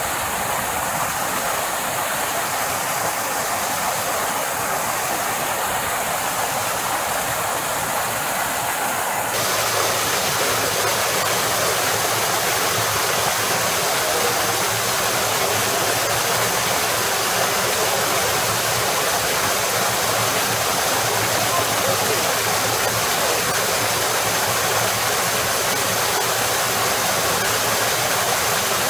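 Water of the Fountain of the Four Rivers cascading from the travertine rock into its stone basin: a steady, splashing rush that turns louder and fuller about nine seconds in.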